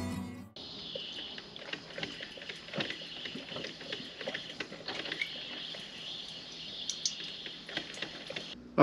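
Drip coffee maker brewing: a steady hiss with many small irregular pops and sputters. Background music fades out in the first half second.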